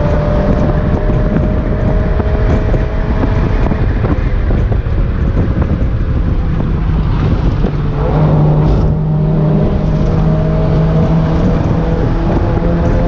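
Mazda MX-5 NA's 1.6-litre four-cylinder engine through a BBK cat-back exhaust, heard from inside the car: its note sags while the car slows, then rises about eight seconds in as power goes back on and holds steady. Wind and road noise run under it.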